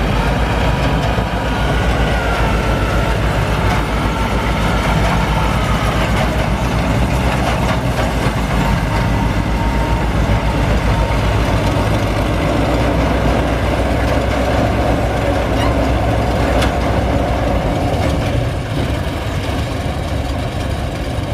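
Maxi Bimo NDR 102 combine harvester's diesel engine running steadily, with a low throbbing pulse; it gets a little quieter near the end.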